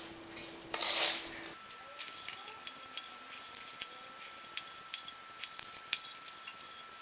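A spoon scooping and scraping sticky chocolate-coated puffed-rice cereal into cupcake cases, with a louder scrape about a second in and many light clicks and rustles after it.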